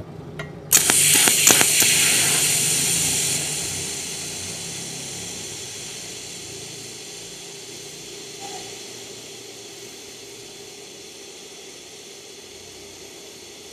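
TIG welding arc on mild steel, catching with a few crackles about a second in, then a steady hiss that slowly grows fainter as the bead is laid with hand-fed filler wire.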